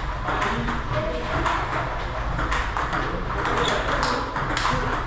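Table tennis rally: the ball clicking off the paddles and the table in a quick, even rhythm of a few hits a second, over the steady background noise of a busy hall.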